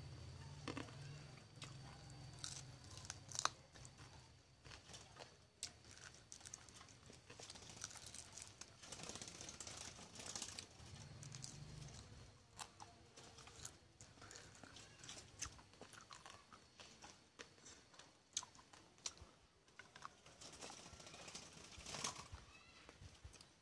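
Quiet, close chewing and crunching of a person eating rice and fried fish, with scattered small clicks and crackles as fingers work the food.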